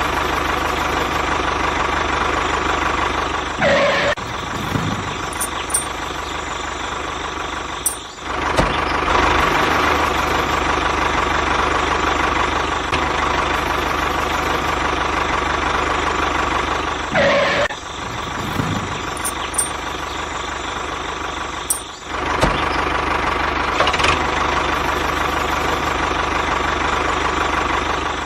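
Small engine of a homemade mini bulldozer running steadily. Its pitch swells briefly a few times, and the sound drops out for a moment twice.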